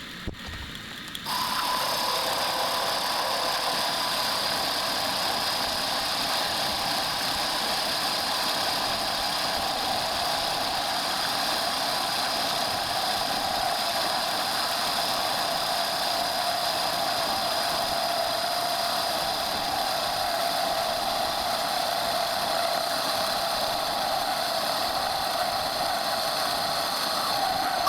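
Metal lathe running with a boring bar cutting inside the steel holder's bore: a steady mechanical noise with a high whine that starts abruptly about a second in, its lower band slowly drifting lower.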